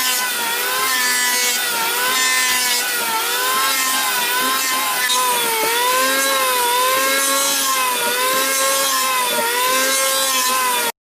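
Power tool cutting into wood, its motor whine dipping in pitch and recovering about once a second as it bites with each pass, then cutting off suddenly near the end.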